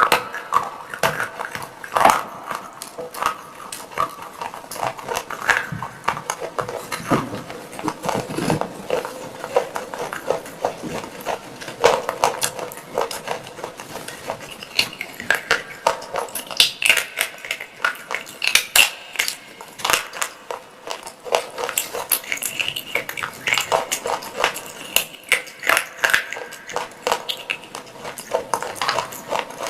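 Close-up crunching and clinking of hard fired-clay pot pieces being bitten and chewed: many sharp, irregular cracks in quick succession.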